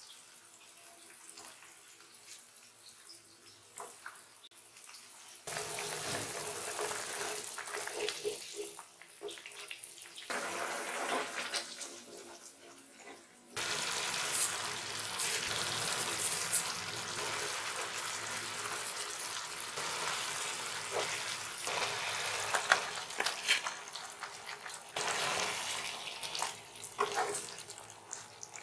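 Chili-tomato sambal sizzling and bubbling in a small nonstick frying pan, with clicks and scrapes of a wooden spatula. It starts faint and gets louder about five seconds in and again near the middle.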